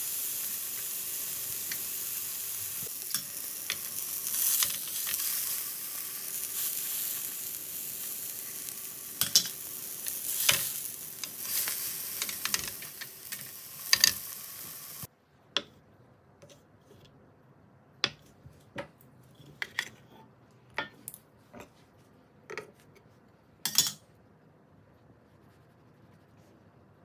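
A mushroom sausage sizzling in a frying pan, with a few sharp taps as it is handled. About halfway through, the sizzling cuts off and only scattered light clicks and taps remain.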